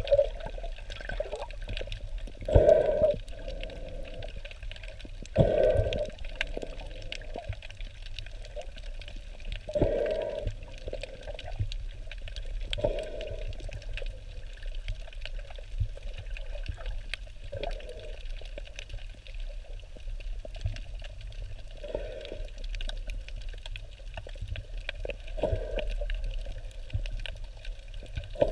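Water sloshing and splashing in short surges every three to four seconds, about eight in all, as a turtle swims through it.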